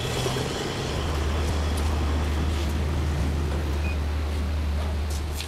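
Steady low outdoor rumble, such as traffic or wind on the camera microphone, with a few faint ticks.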